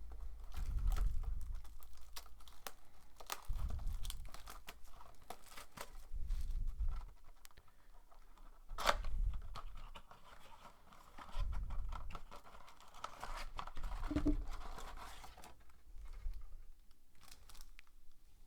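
Plastic shrink wrap being torn and crinkled off a cardboard trading-card blaster box as it is opened, with many small crackles and clicks, one sharp snap about halfway through, and dull knocks of the box being handled every few seconds.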